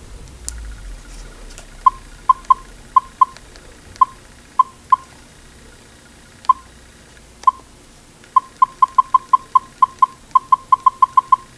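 Canon PowerShot ELPH 170 IS camera's button-press beeps as its menu is scrolled. Short, high, identical beeps come one or two at a time at first, then in a quick run of about fifteen, several a second, near the end.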